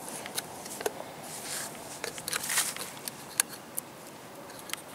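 Foil seal in the neck of a plastic motor-oil jug being pierced and torn open with a metal tool: a string of sharp clicks and scratchy crinkling, loudest about one and a half to three seconds in.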